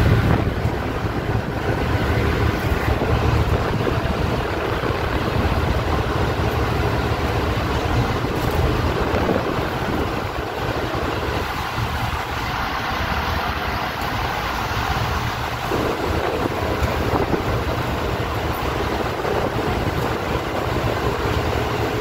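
Steady low rumble of a vessel's engines on the open deck at sea, with wind buffeting the microphone.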